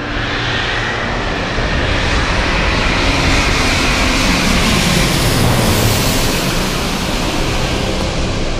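Twin-engine jet airliner on landing approach passing low overhead: a loud engine roar that swells to its loudest about two-thirds of the way through, then begins to ease.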